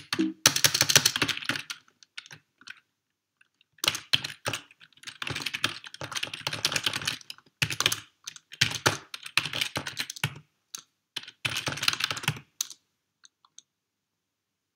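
Typing on a computer keyboard: rapid key clicks in several bursts, stopping about two seconds before the end.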